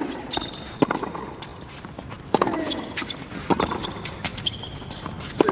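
Tennis rally: racquet strings striking the ball in sharp pops about every second and a quarter, each with a short ringing tail.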